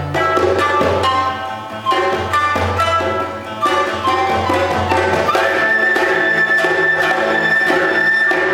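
Chinese ensemble playing a lively Xinjiang-style dance tune: plucked pipa and hand-drum-style percussion strokes over low cello notes. About five seconds in, a high held note enters, sliding up slightly as it starts.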